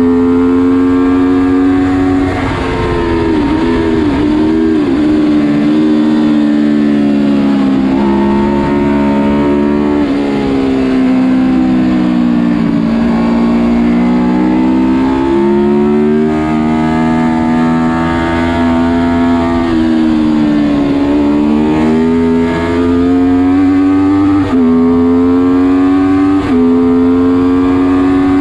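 Honda VFR750 RC24's V4 engine heard onboard at racing speed, revs climbing and falling through the corners, with several sudden jumps in pitch at gear changes.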